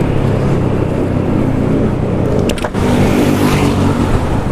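Motorcycle engine running while riding, with wind rumble on the microphone. Just past the middle there is a sharp click and a brief drop in level, after which the engine note shifts.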